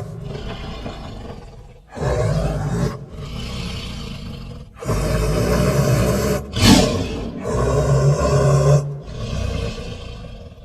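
Beast roar sound effects: a run of about six separate growling roars, each one to two and a half seconds long with short gaps between, the loudest and sharpest cry coming about seven seconds in.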